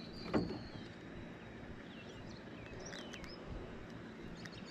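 Quiet outdoor ambience on the water: birds chirping now and then over a faint low steady hum, with one short thump about a third of a second in.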